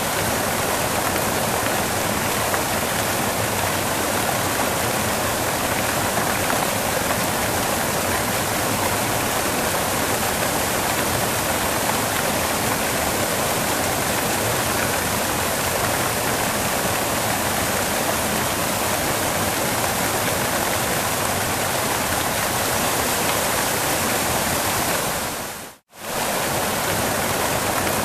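Waterfall: a steady, full rush of falling water. It cuts out for a moment near the end and comes straight back.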